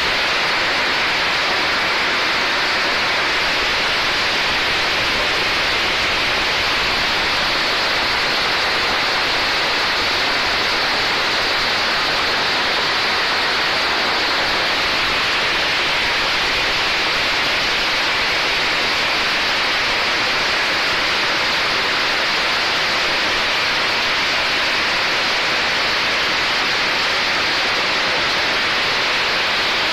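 Label remover machine of a PET bottle washing plant running with water spraying: a steady, loud rushing hiss with no rhythm or breaks.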